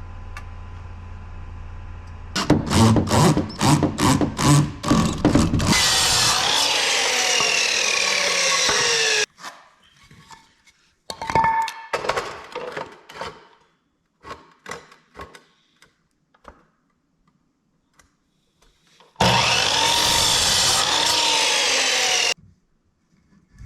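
Sawing plywood: a few seconds of quick rhythmic saw strokes, then a steady cutting sound with a falling pitch that stops abruptly. After scattered knocks and handling of the wood, a second stretch of steady sawing comes near the end and cuts off sharply.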